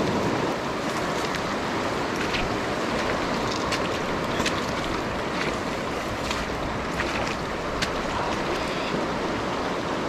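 Steady rushing of a fast, shallow river running over stones, with scattered light ticks and rustles through it.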